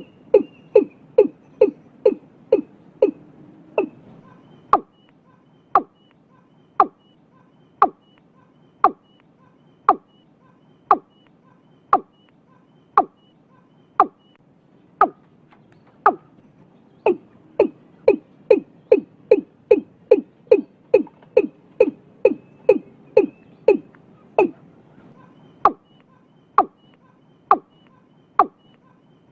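Watercock (cúm núm) calling: a long series of short, sharp notes. They come about three a second at first, slow to about one a second, quicken again past the middle, and slow once more near the end.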